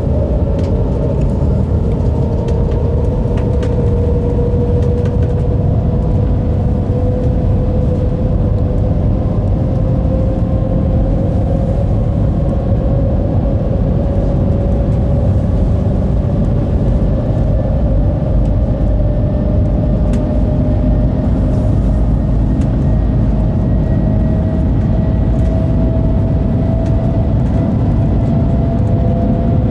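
Shanghai maglev train cabin noise at speed: a steady low rumble with a whine that climbs slowly and evenly in pitch, as the train accelerates.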